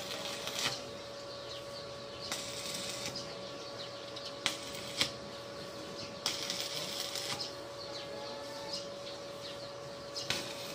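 Electric arc welding on steel fence bars: several bursts of arc crackle, each about a second long, with a few sharp clicks between them.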